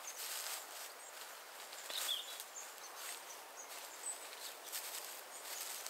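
Dry straw thatch rustling and crackling in short, repeated strokes as it is handled and pushed into place on the roof, with a few brief bird chirps.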